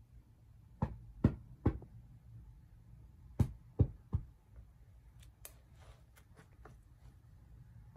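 Sharp thumps of a small dog's paws on the floor as it hops and pounces in play: two quick runs of three thumps a couple of seconds apart, followed by lighter ticks.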